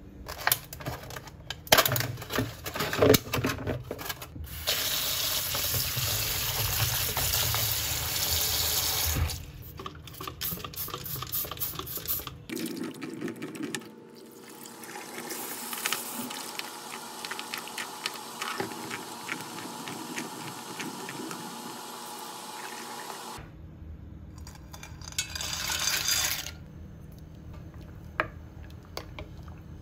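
A kitchen tap runs into a sink for several seconds. Hands swish cherry tomatoes around in a bowl of water. Knocks and clatter of handling come before and after.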